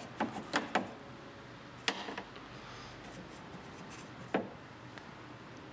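Paintbrush working paint wash onto a dollhouse: faint scrubbing and rubbing, with a few sharp, irregular taps as the brush dabs against the surface.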